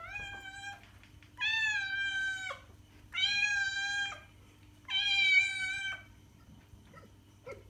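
Young orange tabby cat meowing four times, each meow drawn out and fairly even in pitch, dropping slightly at the end. The first is shorter than the other three.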